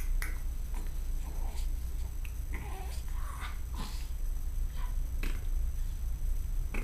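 A baby's soft cooing and small vocal sounds, a few short, faint coos that bend in pitch, with little clicks of handling over a low steady rumble.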